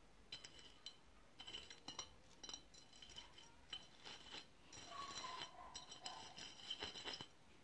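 Faint, repeated dabbing and scraping of a plastic laundry scrub brush's bristles on a cut-glass plate as it is loaded with gouache paint, with light clinks from the glass. The clicking stops shortly before the end.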